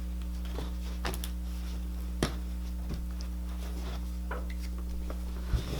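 Clear glitter slime being handled, giving a few soft clicks and small pops, over a steady low electrical hum.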